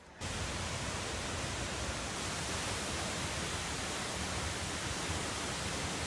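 Twin waterfall plunging into a pool: a steady, even rush of falling water with a low rumble underneath, starting abruptly just after the start.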